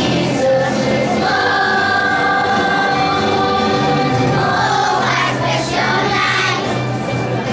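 Children's choir singing a Christmas song over instrumental accompaniment.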